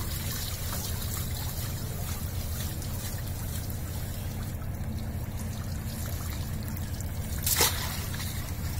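Seawater trickling and pouring off a wet frayed polypropylene rope mop as it is lifted and shaken over a landing net to knock shrimp out of it. A single sharp knock near the end.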